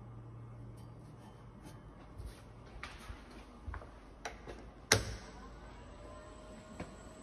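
A run of clicks and knocks as the rotary switches on a Cook & Beals honey extractor's control panel are turned, the loudest about five seconds in. After it a steady electric hum from the extractor's drive starts up.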